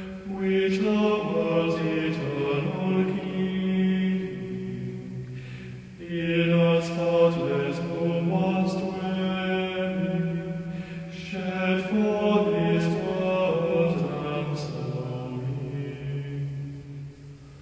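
Background music: a slow chanted hymn, sung in long held phrases with short breaks between them.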